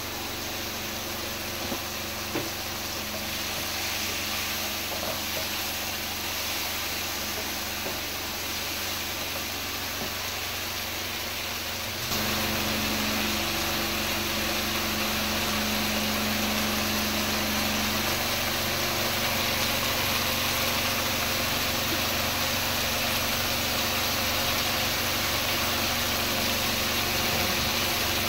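Chicken and vegetables sizzling as they fry in a frying pan: a steady hiss that gets louder about twelve seconds in, with a steady low hum underneath.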